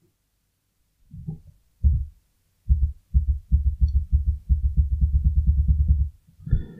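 Low, dull taps from working the computer, carried through the desk into the microphone: two single taps, then a fast run of about nine a second for some three seconds.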